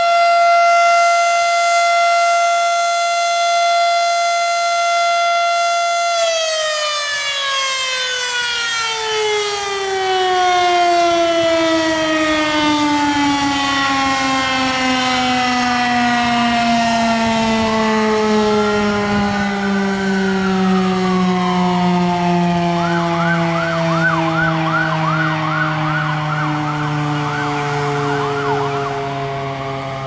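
Federal Signal Model 5A tornado siren sounding a super loud steady alert tone. About six seconds in it shuts off and its pitch slowly falls as the rotor winds down. Fainter tones sweep up and down over the wind-down in its second half.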